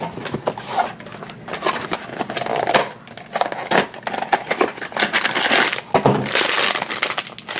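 Small cardboard blind box handled and opened, its flaps scraping and tapping in a run of short clicks and rustles, then a foil bag crinkling near the end.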